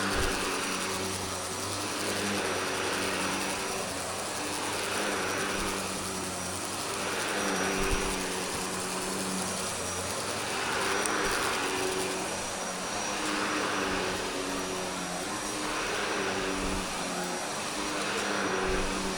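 Shark Navigator Lift-Away upright vacuum running on carpet: a steady motor hum under an airy suction rush that rises and falls about every two seconds as it is pushed back and forth. A short knock about eight seconds in.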